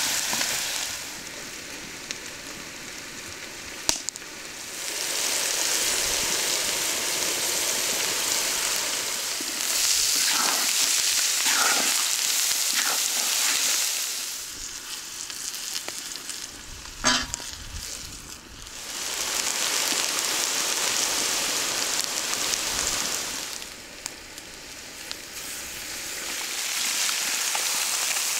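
Chicken hearts and livers frying in a pan, a steady hiss of sizzling that swells and fades in long stretches as the meat is stirred. A utensil clinks sharply against the pan a couple of times, loudest about seventeen seconds in.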